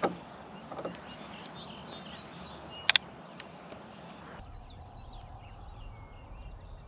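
Songbirds chirping and singing, with two sharp clicks in quick succession about three seconds in.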